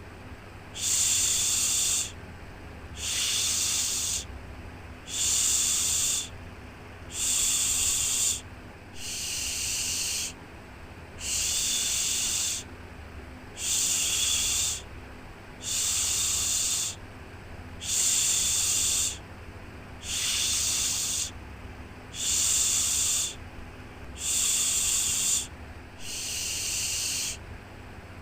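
A rhythmic "shhh" shushing sound for soothing a baby to sleep, about thirteen hissing shushes each a little over a second long, one about every two seconds. A faint low steady hum runs underneath.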